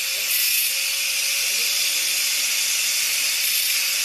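Angle grinder running steadily with a metal rod held against its wheel, grinding the point of a home-made tent stake: an even, harsh grinding hiss over a faint steady motor tone.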